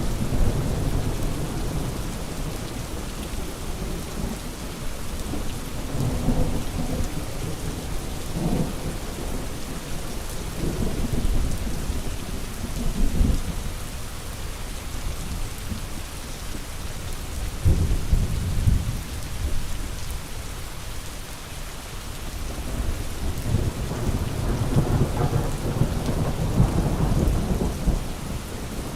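Steady rain with low rolls of thunder swelling and fading several times.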